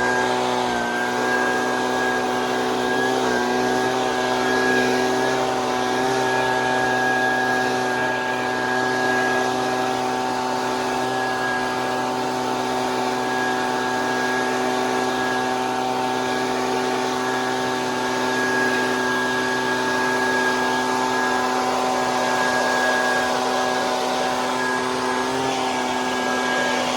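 Pressure washer running at a steady speed, its motor hum over the hiss of the water spray.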